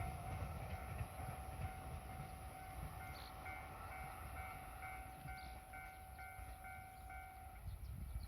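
Railway level crossing warning bell ringing in a steady, evenly repeating pattern, about two strokes a second, while a just-passed train's rumble fades away; the bell and its steady tone stop near the end as the crossing clears.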